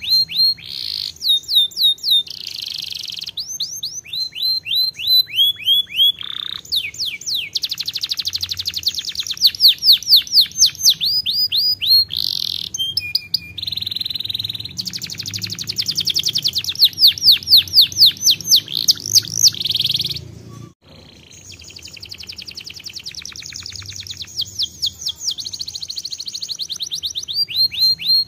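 Domestic canary singing a long, loud song made of rapid trills: runs of quick repeated down-slurred notes and fast buzzy rolls, switching from one trill to the next every second or two, with a brief pause about two-thirds of the way through.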